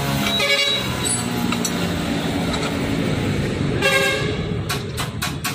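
Electric impact gun fastening rotavator blade bolts: the motor whines briefly twice, then hammers in a rapid run of knocks, about five a second. The mechanics say this gun is giving them trouble.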